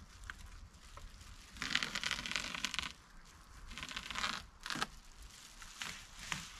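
Double-foil bubble insulation being cut with a blade drawn along a level: two long slicing strokes, one about a second and a half in and another about four seconds in, then a few short ones.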